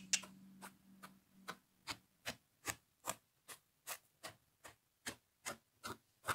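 Steady, even ticking, about two and a half ticks a second, with a faint low hum during the first second and a half.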